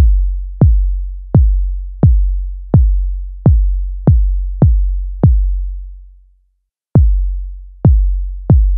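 Synthesized sub kick from Maschine 2's Kick drum synth (Sub model), triggered about a dozen times, roughly one hit every two-thirds of a second with one longer pause in the second half. Each hit is a short click that drops into a long, deep sub-bass boom. The kick runs through EQ and a compressor whose threshold is being set for a punchy attack.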